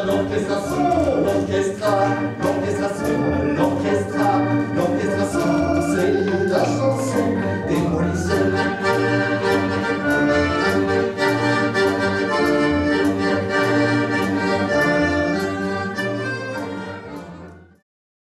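Accordion-led music over a steady beat, fading out and stopping just before the end.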